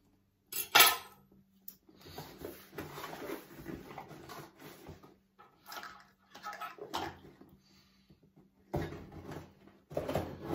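A parcel box being opened by hand: irregular rustling and tearing of packaging, with a sharp crack about a second in and further bursts of handling noise near the end.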